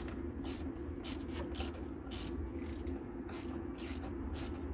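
Repeated short rasping strokes of hand-tool work, about two or three a second at uneven spacing, over a steady low hum.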